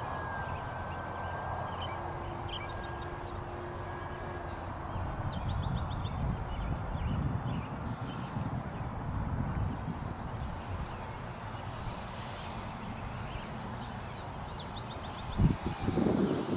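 Radio-controlled FMS P-40B warbird's electric motor at low throttle on its landing approach, a faint thin whine under steady wind rumble on the microphone, with birds chirping. A few sudden bumps come near the end.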